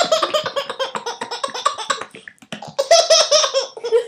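Baby laughing hard in quick repeated bursts, in two bouts with a short pause about two seconds in.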